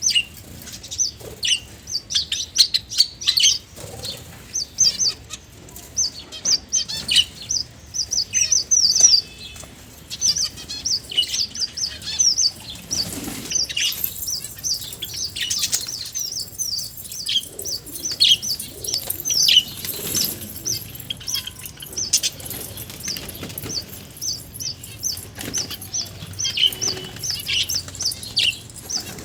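Small finches chirping: a constant stream of short, high chirps, several a second, with wing flutters among them.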